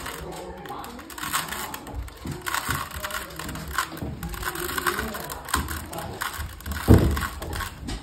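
3x3 Rubik's cube being turned quickly by hand during a solve: a rapid, uneven run of clicks and clacks from its plastic layers. A single louder, deeper knock comes about seven seconds in.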